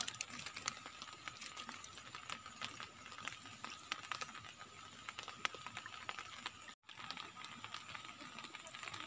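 Light rain: scattered drops ticking irregularly on the water and nearby surfaces, over a faint steady high hum.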